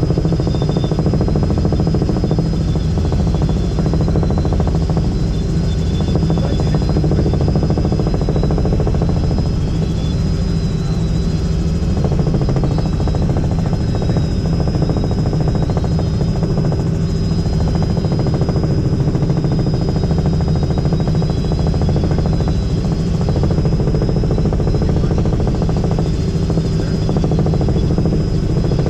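Robinson R66 turbine helicopter in steady flight, heard from inside the cabin: a constant low rotor and engine rumble with a thin, steady high whine.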